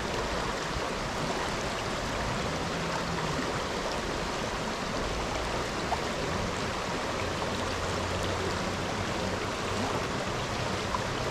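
Steady rush of a rain-swollen creek's fast-moving water.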